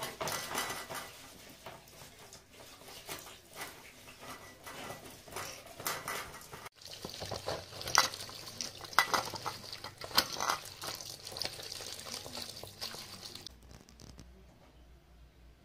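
Hands swishing and rubbing grape leaves in a plastic bowl of water, with small splashes and knocks, under a thin stream running from a water cooler's spigot. The running water stops near the end.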